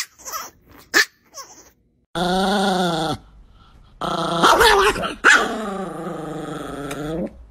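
Small white Chihuahua growling in two drawn-out, pitched grumbles: a short one about two seconds in, then a longer one that wavers up and down in pitch.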